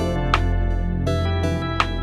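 Background music: sustained chords over a deep bass, with a sharp percussion hit about every one and a half seconds.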